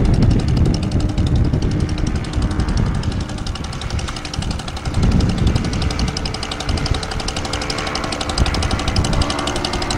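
Paramotor's engine idling steadily on the pilot's back, with gusts of wind buffeting the microphone in low, uneven surges.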